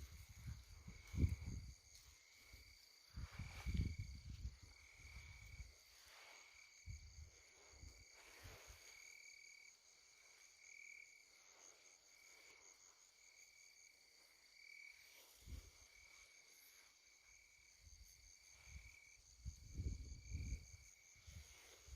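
Night insects chirping steadily in high, pulsing tones. Gusts of wind buffet the microphone with low rumbles, heaviest in the first few seconds and again near the end.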